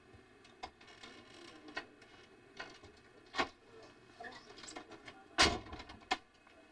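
Scattered light taps and clicks, with one louder thump about five and a half seconds in, over a faint steady hum.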